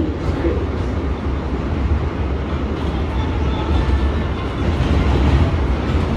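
Inside an R160A subway car running between stations: a steady low rumble of wheels on rail and car noise.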